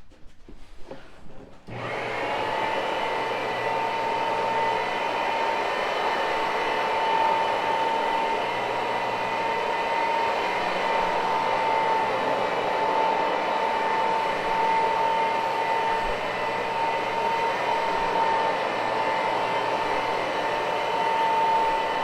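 Electric carpet-cleaning machine switched on about two seconds in, its motor then running steadily: an even rushing noise with a constant high hum.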